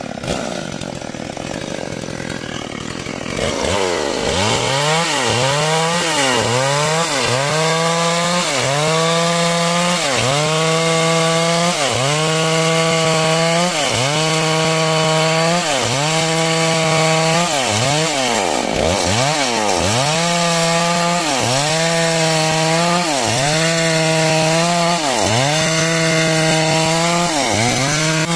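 Two-stroke chainsaw cutting through timber lengthwise to mill a beam. From about three seconds in, the engine speed dips and recovers about once a second as the chain bites into the wood under load.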